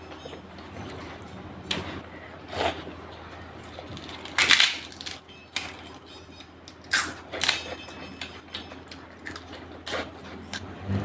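Close-miked eating sounds from a meal of chicken curry, rice and papad: about seven scattered sharp clicks and crunches, with the clatter of a plate and food being handled. The loudest comes about four and a half seconds in.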